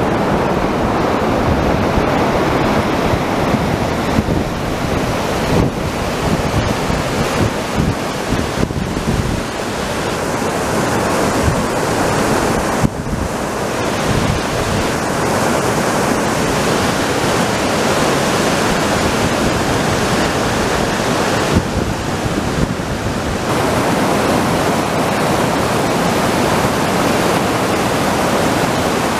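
Whitewater rapids of the Sunwapta River rushing over boulders: a loud, steady noise of churning water.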